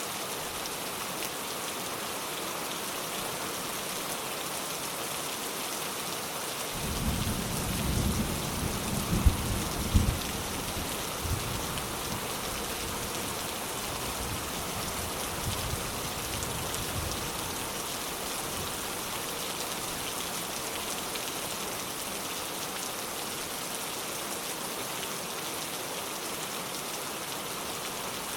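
Steady rain falling, with a peal of thunder breaking in about a quarter of the way through. A sudden low rumble rises to a couple of sharper cracks, then rolls away over about ten seconds.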